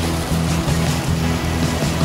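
Background music with held bass notes changing every half second or so, over the wash of waves against shore rocks.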